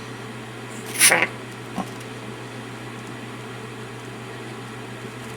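Patagonian conure giving one short call about a second in, over a steady low hum in the room.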